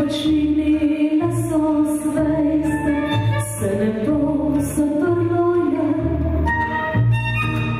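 A woman singing into a microphone with instrumental accompaniment: long held notes over a bass that comes in about every second and a half.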